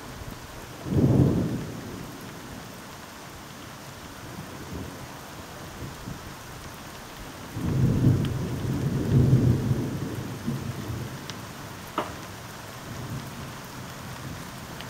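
Distant thunder over steady rain: a short rumble about a second in, then a longer rolling rumble from about eight seconds in. A single sharp tick near the end.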